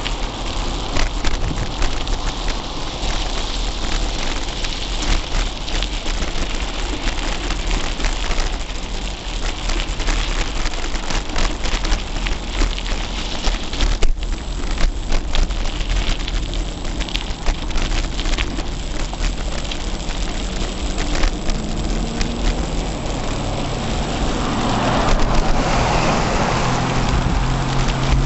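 Riding noise from a Gary Fisher Tassajara mountain bike picked up by a camera taped to its handlebars: wind rumbling on the microphone, tyre hiss and a steady clatter of small rattles over rough pavement. Near the end a pickup truck's engine is heard close by and the noise grows louder.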